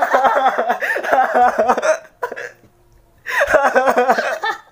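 A young man laughing hard in two bouts: a long burst at the start, a short pause, then a shorter burst about three seconds in.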